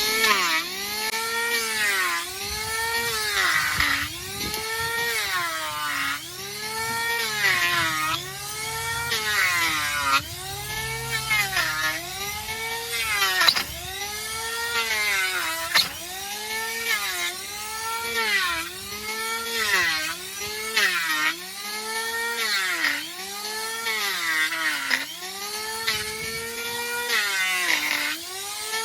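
Hand-held electric trimming tool grinding a donkey's hoof. Its motor whine swings up and down in pitch about every second and a bit as it is pressed into the horn and eased off again, over a gritty grinding noise.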